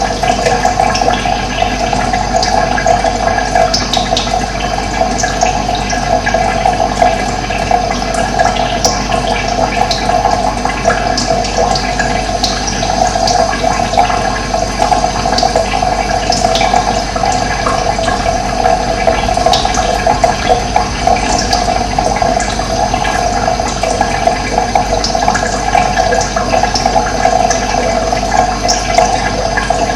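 Steady rush of running water, with short high bird chirps scattered throughout.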